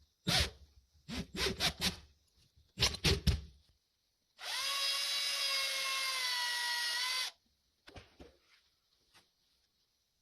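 Electric drill running steadily for about three seconds with an even whine, then stopping. It is preceded by a run of sharp knocks and clicks from handling tools and metal.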